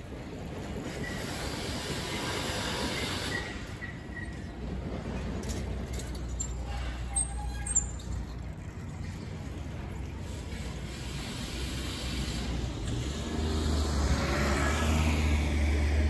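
Busy city street traffic at a railway level crossing, a steady wash of road noise. There are two brief high squeaks about halfway through, and a vehicle engine's low rumble grows louder over the last few seconds.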